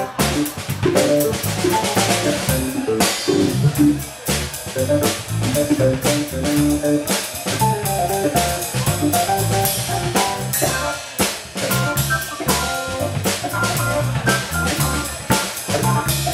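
Live instrumental trio playing: a drum kit with dense snare, rimshot and cymbal strokes, an electric bass, and an electric organ playing moving melodic lines.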